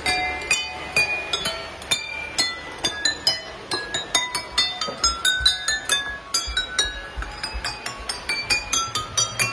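Water-filled wine glasses struck one after another by small hammers on a moving model train, ringing out a melody of clear, bell-like notes at about three to four notes a second.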